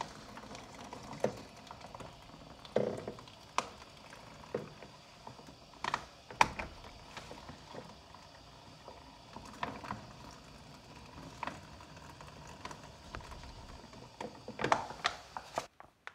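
Hot water running from a water purifier's tap into a thin plastic bag, with the plastic crinkling now and then; the flow stops suddenly near the end.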